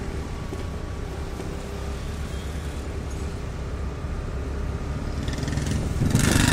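Steady low drone of a motorcycle engine and road noise while riding in traffic. Near the end a brief, louder rush of noise sweeps through.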